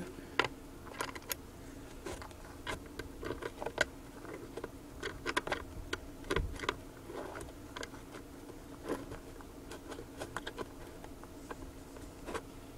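Irregular small clicks and scrapes of a mounting screw being turned in by hand through the stamped steel frame of a 5-inch Peerless woofer into its enclosure.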